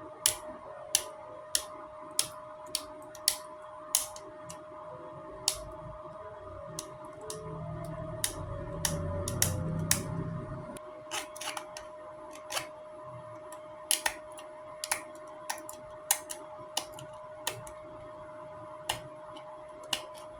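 3D printer running: a steady motor whine with short stepped changes in pitch, and sharp irregular clicks. A louder low buzz of motor movement comes in about seven seconds in and stops near the eleven-second mark.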